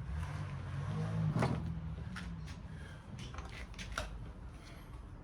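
Scattered clicks and light clunks of hands and tools working on a radial arm saw as its power cord is being taken off, with a low rumble of handling in the first couple of seconds.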